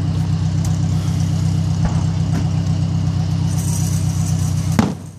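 A vehicle engine idling steadily close by, with a single sharp bang near the end.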